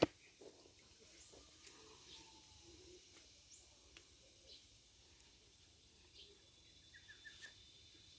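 Faint rural outdoor ambience: scattered short bird chirps over a faint steady high hum, with one sharp click right at the start and a quick run of small ticks about seven seconds in.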